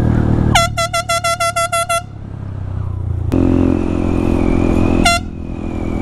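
Air horn mounted on a motorcycle sounding a rapid string of short blasts about half a second in, then one more short blast near the end, over the motorcycle's engine running underneath.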